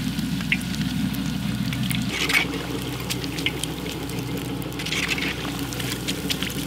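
Gulab jamun dough balls frying in hot oil in a wide metal kadai, the oil bubbling and sizzling steadily over a low rumble. A wire-mesh skimmer stirs through the oil, with brief scrapes about two seconds in and again around five seconds.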